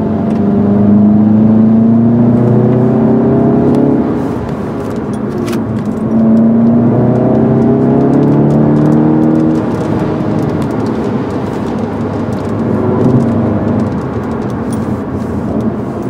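Volkswagen Golf GTI's turbocharged 2.0-litre four-cylinder heard from inside the cabin, pulling up through the revs twice, its note rising each time, with an easing between the pulls and a quieter, steadier run after about ten seconds.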